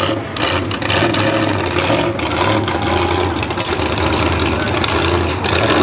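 A 540 cubic-inch big-block Chevy V8 in a lifted monster truck idling steadily.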